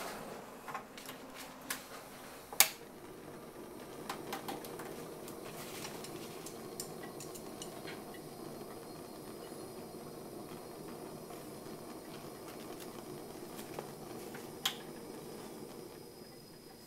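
Portable butane cassette stove being lit: a few sharp clicks in the first seconds, the loudest about two and a half seconds in. Then the gas burner runs with a steady rushing flame, with one more click near the end.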